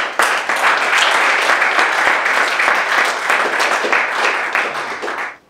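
Audience applauding, many hands clapping at once; the applause cuts off suddenly near the end.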